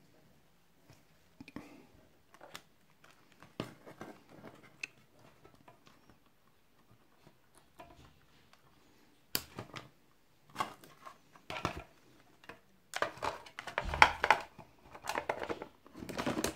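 Hands handling small electronic parts and a clear plastic box as the parts are stuffed inside: scattered light clicks and rustles at first, then a busier stretch of plastic knocking, clicking and rubbing in the last few seconds.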